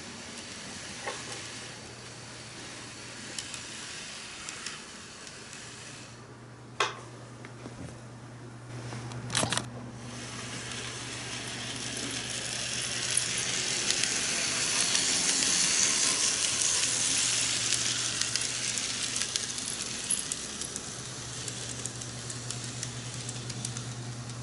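N gauge model trains running on the layout: a steady low motor hum with a hissing rattle of wheels on track that swells as a train runs close by, then fades. Two sharp clicks come in the first half.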